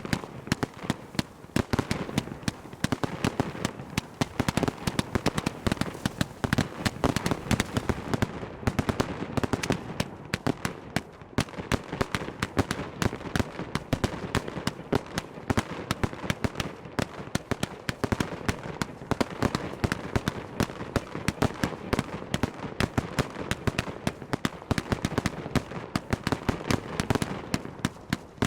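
Fireworks display: a rapid, unbroken barrage of bangs and bursts, many every second.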